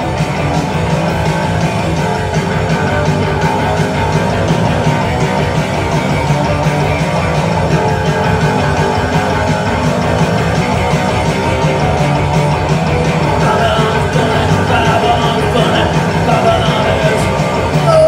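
A rock band playing live, loud and steady: distorted electric guitars, bass guitar and drums in a fast punk rock song.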